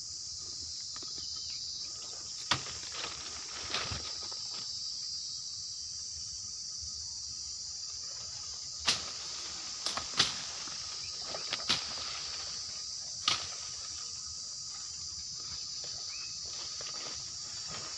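Steady high-pitched chirring of an insect chorus. Scattered sharp snaps and crunches of footsteps and twigs breaking in undergrowth sound over it, the loudest about nine, ten and thirteen seconds in.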